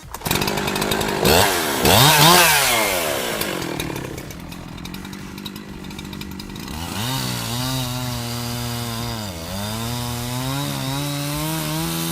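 Husqvarna 372 XP two-stroke chainsaw with a 24-inch bar and ripping chain, set in an Alaskan chainsaw mill, revved up and down a couple of times, then held at a steady high speed, dipping briefly about nine seconds in, as it rips a red maple log lengthwise into boards.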